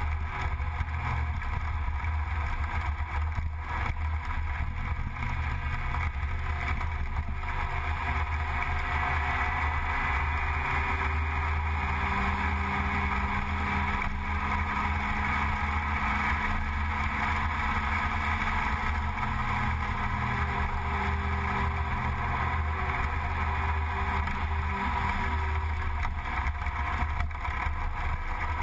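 Gilera Runner 180 scooter engine running steadily while riding at a constant speed, with wind buffeting the microphone.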